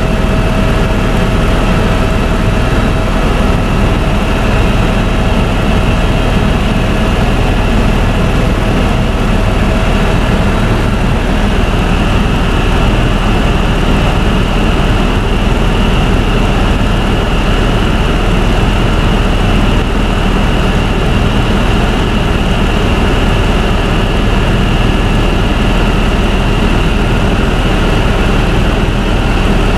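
Helicopter in flight heard from inside the cabin: loud, steady engine and rotor noise with a constant high whine. A lower steady tone drops out about a third of the way through.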